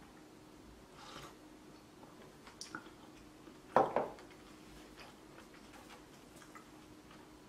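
A wooden soup bowl set down on a tabletop with a single hollow knock just under four seconds in. A few soft clicks and handling sounds come before it.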